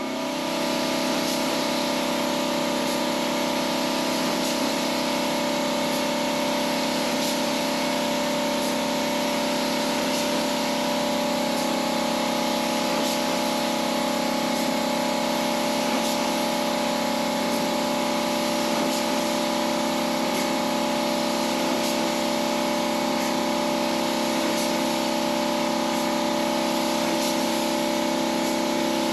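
Steady hiss of a gravity-feed paint spray gun blowing paint over a car body, over the continuous hum of the air compressor that feeds it.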